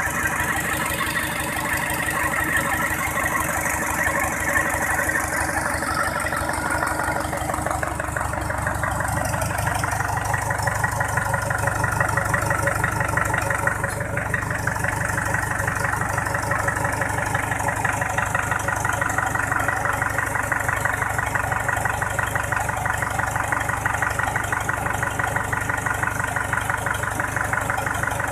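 Mitsubishi PS120 single-cylinder diesel engine running steadily at idle, with a fast, even beat of firing strokes.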